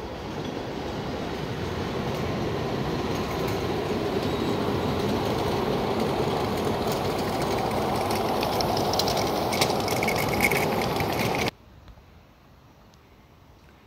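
Ride-on live-steam miniature train rumbling past on small-gauge track, growing louder as it approaches, with clicking of wheels over the rails and a brief high squeal about ten seconds in. It stops abruptly near the end, leaving only faint outdoor background.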